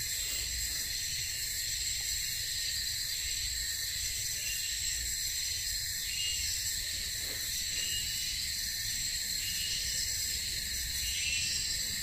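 Steady, high-pitched chorus of insects droning without a break.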